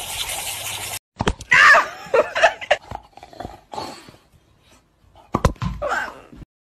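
Steady hiss of a lawn sprinkler's water jet, cut off about a second in; then sharp knocks and thumps with excited vocal sounds, a burst around two seconds in and another just before the end, which stops abruptly.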